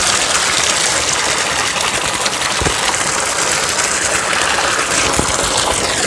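Spring water gushing steadily from an open pipe end and splashing onto rocks, a strong constant flow.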